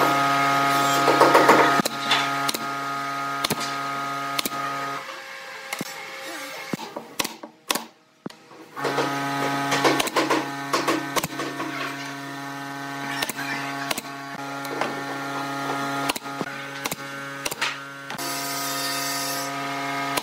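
Pneumatic brad nailer firing a string of sharp shots into pine strips, with wooden strips knocked into place, over the steady hum of an air compressor running. The hum cuts out about five seconds in and comes back a few seconds later; a short hiss of air near the end.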